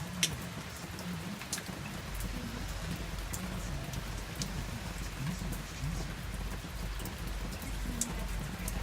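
Steady rain falling, with a handful of sharp single drops tapping on a hard surface. A low rumble runs underneath and deepens about two seconds in.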